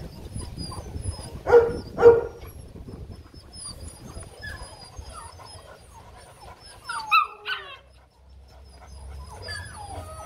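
Rottweiler giving two short barks close together about a second and a half in, then a brief high whine near the seven-second mark.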